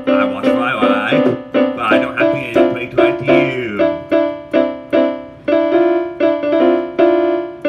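Piano-toned keyboard music: chords struck at a steady pulse, roughly two to three a second.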